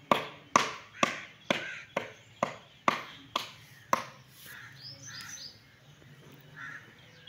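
A small child's hand slapping the top of a stone block, about ten sharp slaps at a steady two a second that stop about four seconds in.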